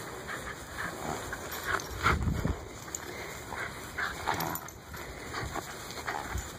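Soft-coated wheaten / wire-haired fox terrier cross making short dog sounds in quick snatches while tugging on a stuffed toy, with one louder, low burst about two seconds in.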